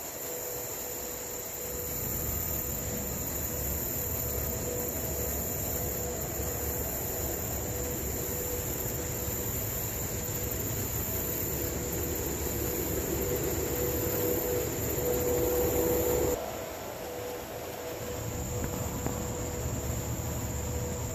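Crickets and other insects chirping steadily over a low, even rumble. The rumble breaks off suddenly about 16 seconds in and returns a second or two later.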